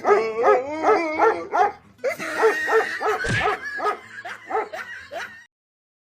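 A dog giving quick, high yips and whining calls in rapid runs, with an abrupt cut about two seconds in to more yipping, which stops shortly before the end.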